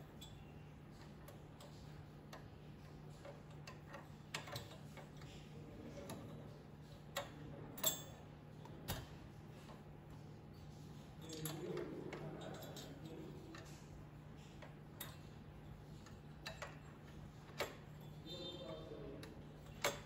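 Scattered sharp clicks and light knocks of computer hardware being handled and fitted during a CPU cooler install, irregularly spaced, over a steady low hum.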